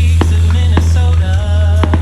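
Loud music with a gliding melody over a heavy, steady bass, with several sharp cracks cutting through it.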